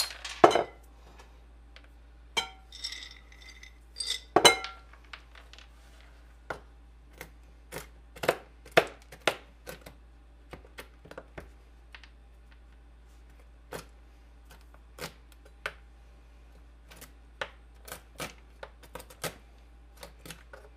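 Raw almonds tipped from a glass jar clatter onto a plastic cutting board, with a few ringing glass clinks in the first five seconds. Then a chef's knife chops through the almonds, pressed down onto the board in sharp, irregular knocks.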